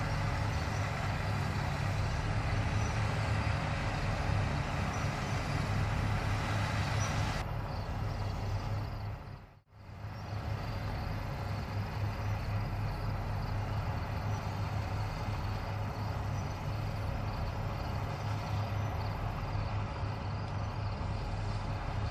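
Fendt 9T combine harvester running at work in wheat: a steady low engine drone under a constant mechanical rush. The sound dips out sharply about nine and a half seconds in, then comes back the same.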